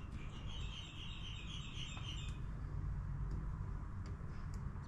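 A bird calling through an open window: a quick run of short high notes, about four a second, that stops a little over two seconds in, over a low steady hum.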